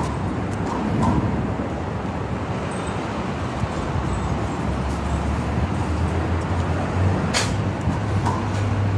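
Steady road traffic noise, with a low vehicle drone coming in about halfway through and a single sharp click late on.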